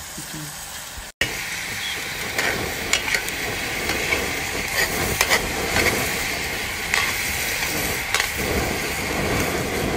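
Chopped meat sizzling as it fries in a wide metal pan, with a metal spoon scraping and clinking against the pan as the pieces are stirred. The sizzle cuts out briefly about a second in, then carries on louder, the spoon clinks standing out over it.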